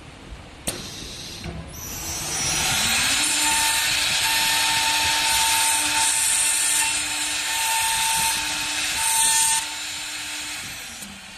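CNC door-hinge machine's router spindle spinning up with a rising whine, then milling a hinge recess in a wooden door for about seven seconds. The cutting stops abruptly near the end and the machine winds down.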